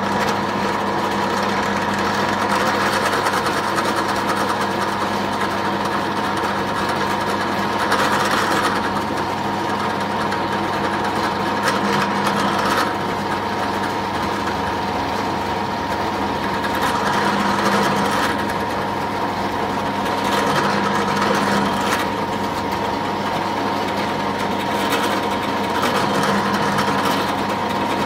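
Drill press motor running with a steady hum while a Forstner bit bores into a wooden board, the cutting noise swelling several times as the bit is fed down.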